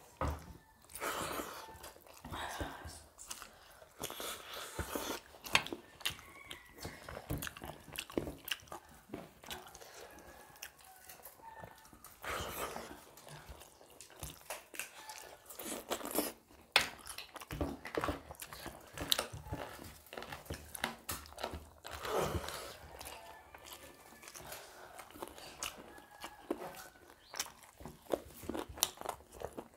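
Chewing and mouth sounds of people eating rice mixed with chicken spinach curry by hand: irregular wet smacks and short clicks.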